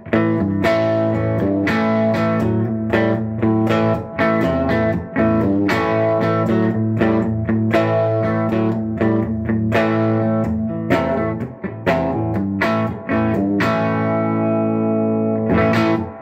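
D'Angelico electric guitar on its bridge humbucker, played through a Fender '64 Deluxe Reverb hand-wired tube amp turned up so it breaks up into a crunchy rock tone. It plays a run of picked chords and riffs, and a last chord near the end rings out and fades.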